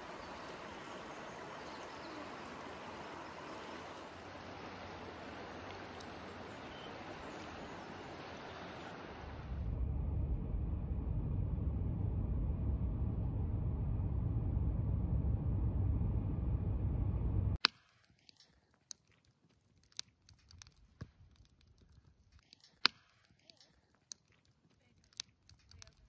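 Steady rushing of a river. About nine seconds in it gives way to a louder, deep low rumble, which cuts off abruptly after about seventeen seconds into near quiet with scattered sharp clicks.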